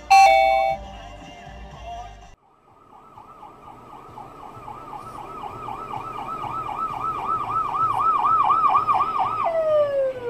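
A loud ringing tone over background music at the start. Then an ambulance siren wails in fast rising-and-falling cycles, about three a second, and grows steadily louder as it approaches. Near the end the warble gives way to a tone that drops in pitch as the ambulance passes.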